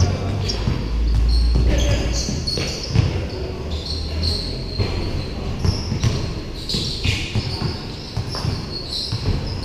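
Basketball bouncing on a painted concrete court in irregular, scattered thuds during play. A low rumble runs for about a second near the start.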